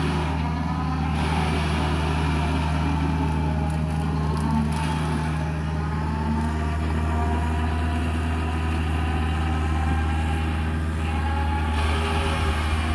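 Kubota excavator's diesel engine running steadily, with a fainter higher whine above its drone. A few brief cracks come about four to five seconds in.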